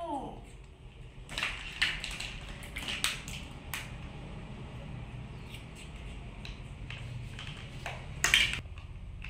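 Plastic fishing toys being handled: scattered light clicks and knocks, with a louder rustling clatter near the end, over a steady low hum.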